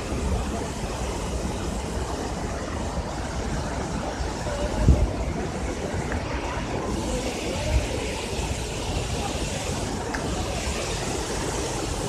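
Steady rushing roar of a large waterfall, mixed with wind buffeting the phone microphone, with a couple of low thumps about five and eight seconds in. The hiss gets brighter about seven seconds in.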